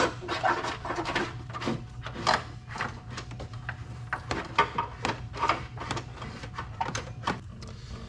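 Irregular rustling, scraping and clicking as a trunk and fuel-door release cable and the plastic interior trim are handled while the cable is fed back along the car's floor, over a steady low hum.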